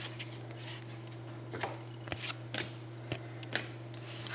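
Soft scattered clicks and slides of hockey trading cards being handled, over a steady low hum.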